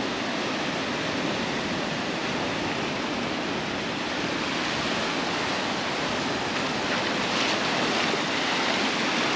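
Surf washing onto a beach in a steady hiss, swelling a little louder about seven seconds in as a wave breaks.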